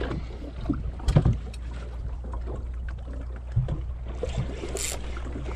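Small fishing boat rocking at anchor on a choppy sea: a steady low rumble of wind and water against the hull, with a few knocks about a second in and a short splash near the end.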